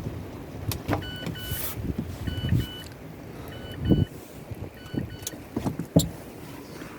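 Strong gusting wind buffeting the microphone, with thumps and clicks. Through it, a faint electronic double beep repeats four times, about once every 1.2 seconds.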